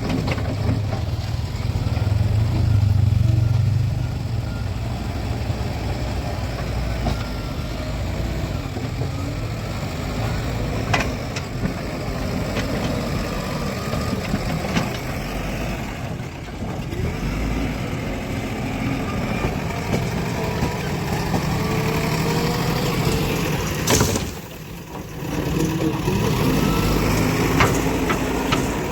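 Heavy diesel engine of construction machinery running, its speed rising and falling, with a few sharp knocks and a brief drop in level near the end.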